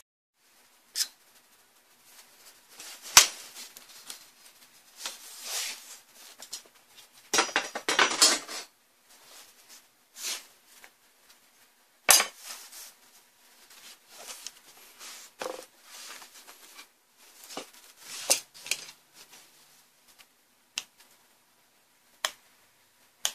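Sheet-metal frame and LCD panel of a monitor being handled and taken apart: irregular clicks, clacks and short scraping rattles, with the sharpest knocks about three and twelve seconds in and a longer rattle around eight seconds in.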